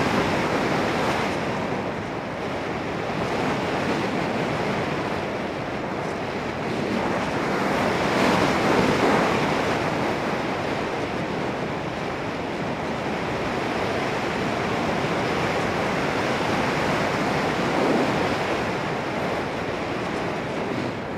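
Rushing wind noise of airflow over the microphone of a camera riding on a Volantex Phoenix 1600 glider, swelling and easing. The motor is off and the glider is gliding.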